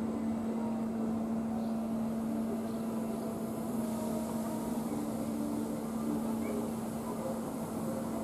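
Rotating airplane tower ride running, its machinery giving a steady hum at one constant pitch.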